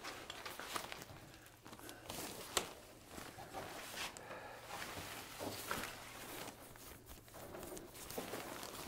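The fabric of a pop-up hunting blind rustling and crinkling as it is pulled open and unfolded, with a few light knocks.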